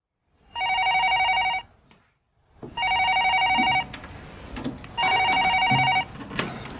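Corded landline telephone ringing: three trilling rings, each about a second long and about two seconds apart.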